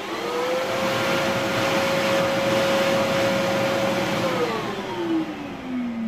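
Bosch Powermax 1700 W canister vacuum cleaner motor switched on. It comes up to speed at the start, holds a steady whine for about four seconds, then is switched off and winds down with falling pitch. It runs without drawing suction because its rubber vacuum seal was left out during reassembly.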